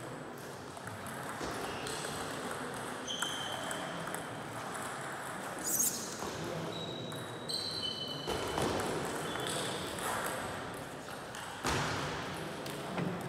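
Table tennis balls clicking and pinging off tables and bats around a large sports hall, over a steady room background. A rally starts on the nearest table about twelve seconds in.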